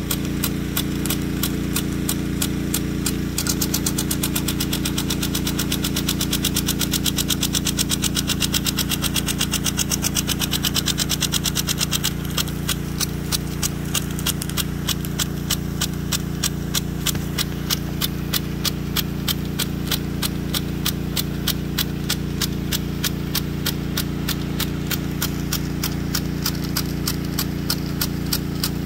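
Weathertec 10-67 one-inch brass impact sprinkler running with its drive arm clacking against the nozzle jet in a fast, regular rhythm. The clacking quickens for several seconds a few seconds in, then settles back to a slower, steady beat. A steady low drone runs underneath.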